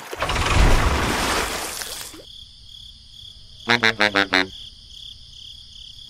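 A loud rushing whoosh with a low rumble for about two seconds that cuts off abruptly, then a quick run of five short pitched toots a little before the end.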